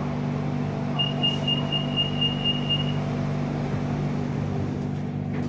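Stopped BTS Skytrain car humming steadily, with its door-closing warning beeper sounding a rapid, high-pitched series of beeps for about two seconds, about a second in, signalling that the doors are about to close. A single knock near the end.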